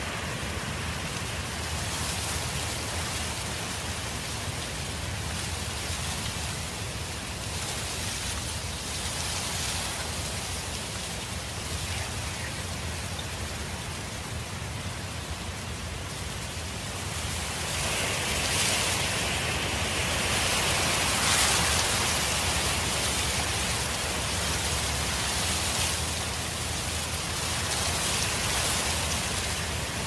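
Steady wind noise, an even hiss that swells louder in a gust a little past halfway and then eases.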